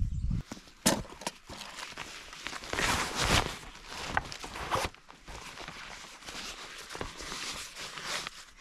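Rustling and crinkling of a backpack's fabric as gear is stuffed into it, with a few sharp clicks and handling knocks.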